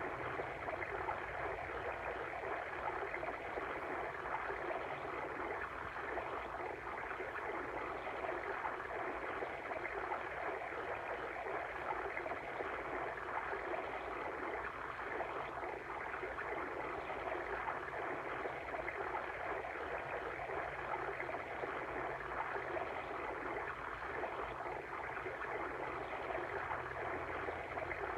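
Steady babbling water stream, flowing water with no breaks.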